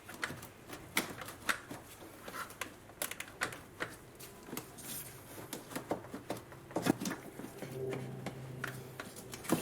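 Plastic engine-bay trim being handled, lifted and pulled out: a run of irregular light clicks and knocks, with sharper knocks about seven seconds in and at the end.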